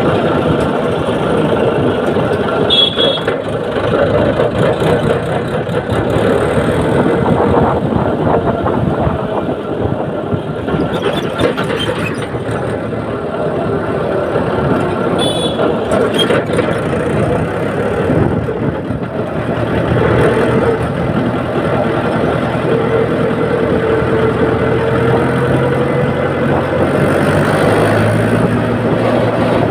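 Mahindra tractor's diesel engine running steadily as the tractor drives along a road, heard from the driver's seat, its pitch wavering a little with the throttle.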